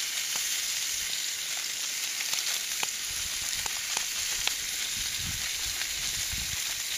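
Whole, unscaled perch frying in vegetable oil in a pan over a campfire: a steady sizzle with scattered sharp pops.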